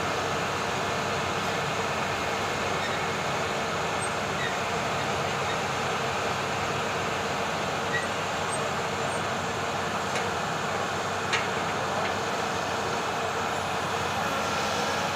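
Excavator's diesel engine running steadily, with a couple of faint knocks about two-thirds of the way through.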